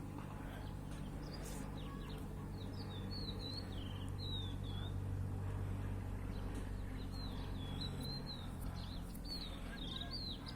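Small birds chirping in repeated short, quick phrases over a steady low hum.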